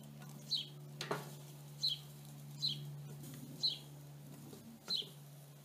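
A bird chirping over and over, short falling chirps roughly once a second. About a second in, a single click as the smoker's bottom door is handled, over a steady low hum.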